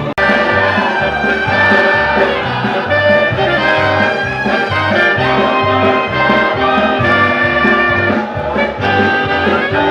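Upbeat brass band music with a steady bass beat, starting after a brief break right at the beginning.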